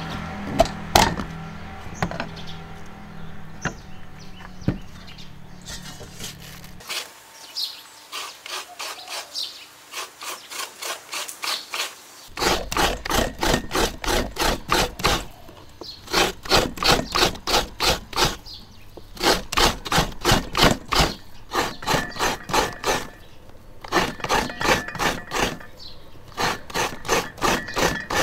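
A few sharp knocks of a cleaver on a coconut shell near the start, then fresh coconut meat being scraped from the shell half: runs of rhythmic rasping strokes, about four a second, broken by short pauses.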